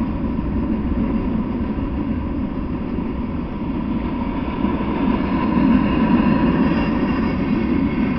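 Freight train of enclosed autorack cars rolling past: a steady rumble of steel wheels on rail, a little louder about five seconds in.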